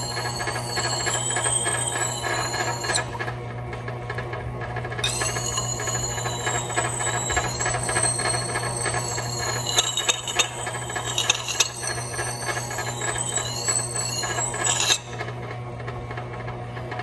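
Motor-driven wet grindstone running with a steady hum while a steel axe blade is held against the turning stone, giving a high, wavering squealing scrape. The scrape drops out for about two seconds around three seconds in and stops again near the end, as the blade is lifted off. This is the final sharpening pass on an edge whose burrs have been worked from both sides.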